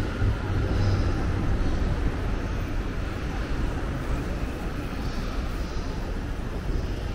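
Steady low rumble of road traffic, loudest in the first second or two and then easing a little.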